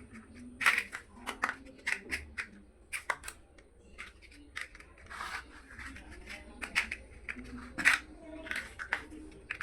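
Small plastic building bricks clicking and rattling as they are handled and pressed together, in irregular sharp clicks with a few short rustling crackles.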